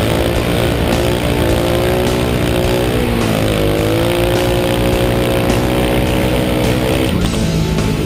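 Onboard sound of a speedway motorcycle's single-cylinder 500cc engine at speed on the shale track. The engine pitch dips about three seconds in as the throttle eases, then climbs again as the rider gets back on the power.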